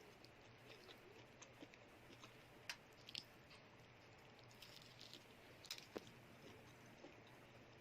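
Faint close-up chewing of a cheese stick, with a few sharper clicks and crackles scattered through it.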